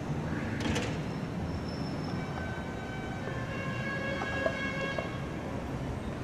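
Outdoor city background: a steady low rumble of wind on the microphone and distant traffic. Through the middle a distant high-pitched tone holds steady for about four seconds.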